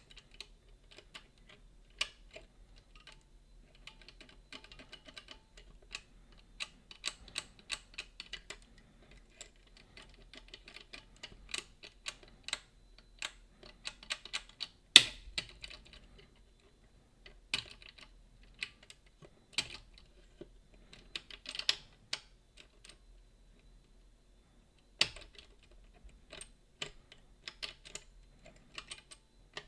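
Lever-lock picking tools clicking and tapping against the levers inside a Boda 429 eight-lever deadbolt: irregular small metallic clicks in short clusters, with one sharper click about halfway through.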